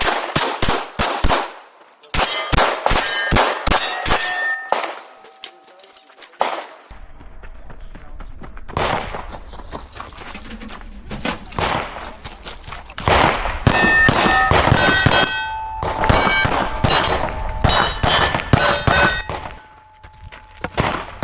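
Rapid pistol shots fired in several quick runs, with steel target plates ringing after hits.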